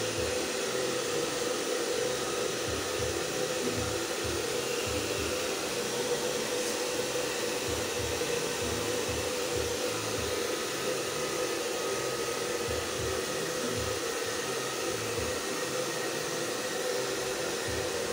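Handheld hair dryer running steadily, a constant whooshing hiss with a steady hum and an uneven low rumble of moving air, as it blows dry a dog's coat.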